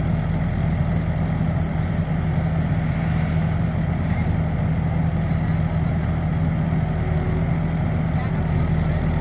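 Skid steer engine running at a steady, even speed.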